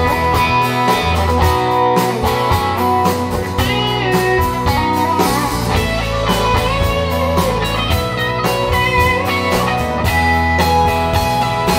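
Live band music with no vocals: an electric guitar lead with bent, gliding notes over acoustic guitars, bass and drums.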